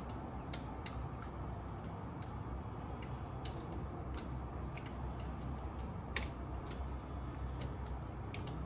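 Ratchet wrench clicking in short, uneven runs as the starter motor's mounting bolt on a BMW R1150GS is tightened down.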